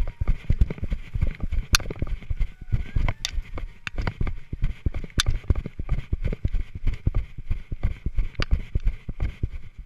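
Running footsteps on grass and dry stubble, heard through a jolting GoPro carried by the runner: a quick run of dull thuds and bumps from each stride, with a few sharp clicks.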